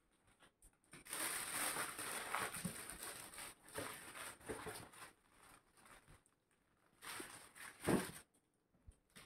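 Rustling and crinkling of metallic foil gift-wrapping paper and cardboard gift boxes being handled, with a louder crackle about eight seconds in.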